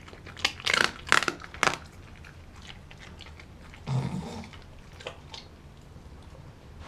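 Doberman biting and chewing raw meat, with a quick run of sharp crunching bites in the first two seconds and fainter chewing clicks later. A short, low-pitched sound comes about four seconds in.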